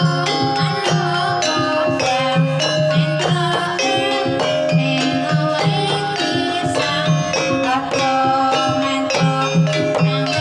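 Javanese gamelan music: struck metallophones ringing held notes over a steady drum beat, playing on without a break.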